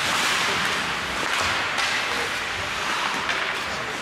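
Ice hockey play: a steady hiss of skates scraping the ice, with a few short stick and puck clacks.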